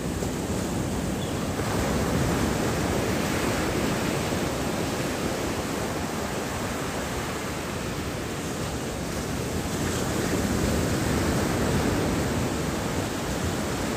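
Ocean surf breaking and washing up the shore in a steady rush, swelling louder twice as waves break.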